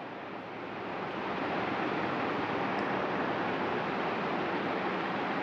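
Steady background hiss with no speech, swelling slightly over the first two seconds and then holding even.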